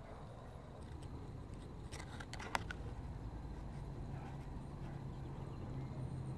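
Low outdoor background rumble that grows a little louder toward the end, with a few sharp clicks about two seconds in.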